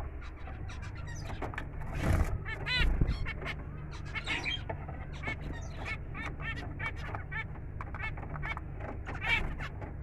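A flock of zebra finches calling throughout in many short calls, several a second, loudest a little after two and three seconds in, over a low steady hum.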